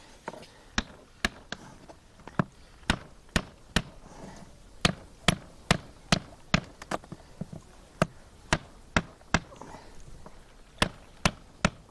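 Repeated sharp knocks on wood, about twenty strikes in uneven runs of one or two a second, as ribs are knocked into a birch bark canoe.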